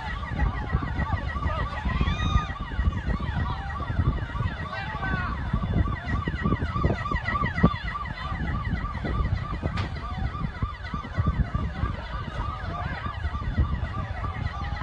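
Emergency vehicle siren yelping, a fast rising-and-falling tone repeating a couple of times a second, over a steady low rumble.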